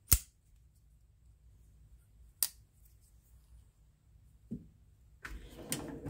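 Sencut button-lock flipper knife blade flipped out and closed: a sharp metallic snap just after the start and another about two and a half seconds in, then a soft tap and handling rustle with small clicks near the end.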